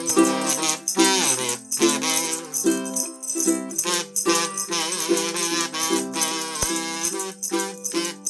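Instrumental backing music on a steady beat, with pitched chords and a bright shaken percussion over the top: the intro to a sung Christmas song.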